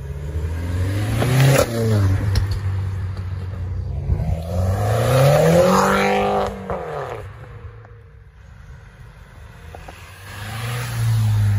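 Hot hatchbacks (a Renault Clio RS, a Peugeot 208 GTi, a Volkswagen Polo GTI) accelerating away one after another, each engine revving up in pitch and then fading as it goes. The loudest rev comes near the middle, with a sharp crack about one and a half seconds in.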